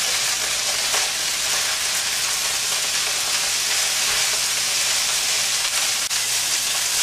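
Broccoli and carrots sizzling in hot oil in a stainless steel wok on high heat, a steady hiss, while a wooden spatula stirs them.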